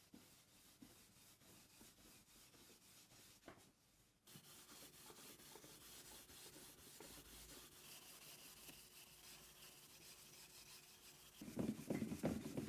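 Faint rubbing on wood, with a short, louder bout of handling noise near the end.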